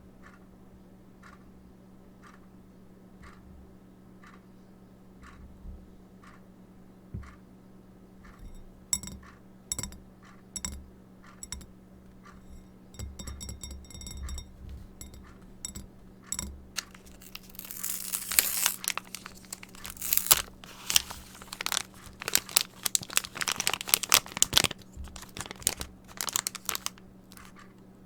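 Plastic crinkling, tearing and crackling, typical of slime packaging being handled and opened. It starts as scattered clicks about eight seconds in and turns into dense, louder crackling in the second half. Under it there is a faint steady tick, about one and a half a second.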